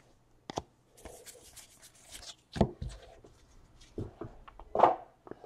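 Trading cards being handled: cards sliding and rubbing against one another, with a few sharp taps, the loudest about two and a half and nearly five seconds in.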